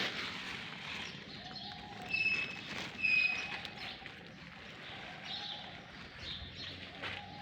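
Birds calling: a few short, high whistled chirps, and lower soft notes repeating every second or so.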